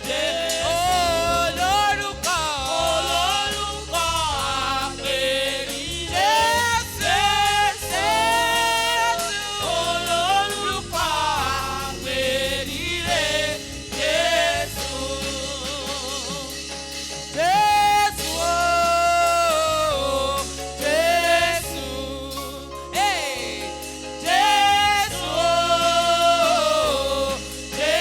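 Gospel choir singing over band accompaniment, the voices gliding between notes and holding long sustained notes.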